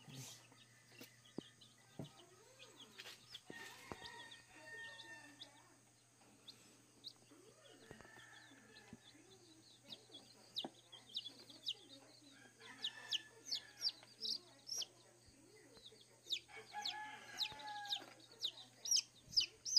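Day-old Rhode Island Red chicks peeping: short, high, falling peeps, coming faster and louder in the last few seconds as a chick is held in the hand.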